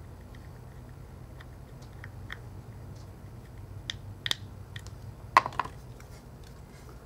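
Scattered small clicks and taps of a small screwdriver and phone parts being handled during iPhone 4 reassembly, with a sharper double click about five seconds in, over a steady low hum.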